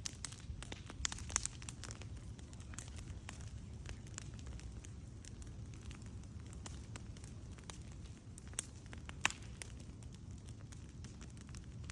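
Fire crackling: frequent small snaps and pops, with two sharper pops about two-thirds of the way through, over a low steady rumble.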